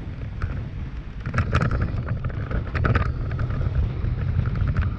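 Toyota Tacoma pickup driving over a bumpy dirt trail: a steady low rumble with wind buffeting the outside microphone. Clusters of knocks and rattles come about a second and a half in and again around three seconds in.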